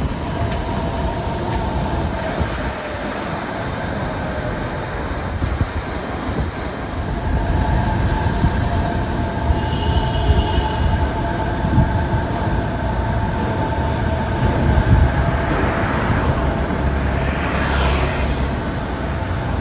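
Suspended monorail train running, with a steady electric motor whine over a low rumble, growing louder about a third of the way in. A brief hiss comes near the end.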